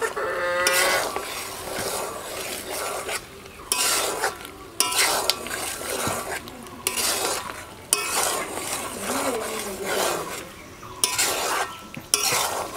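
Metal spatula scraping and stirring chicken pieces around a large aluminium karahi in irregular strokes every second or two, over a light sizzle: the meat is being fried down in oil and spices (koshano) before water is added.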